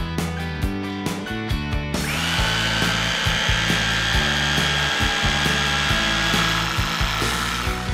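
Skil SDS rotary hammer in hammer-drilling mode, boring into a concrete block. It starts about two seconds in, runs steadily with a high whine and grinding, and stops near the end, over background guitar music.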